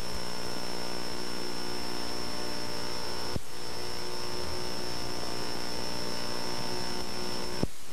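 Steady electrical hum and tape hiss from an old VHS recording, with a short click at each edit, about three and a half seconds in and again near the end.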